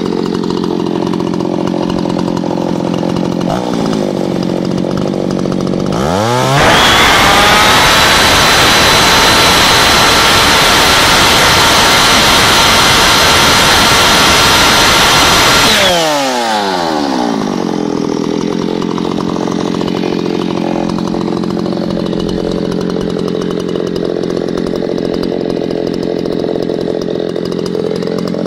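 Ported Solo 670 two-stroke chainsaw with a twin-port muffler running unloaded: idling, then revved up about six seconds in and held at full throttle, near 13,700 rpm, for about ten seconds before the revs fall back to a steady idle.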